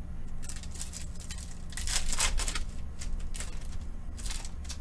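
Foil wrapper of a Panini Prizm UFC trading-card pack crinkling as it is torn open and handled, in several short rustling bursts, over a steady low hum.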